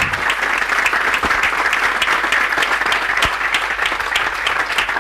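Audience applause: many people clapping at once, a dense, steady patter of claps.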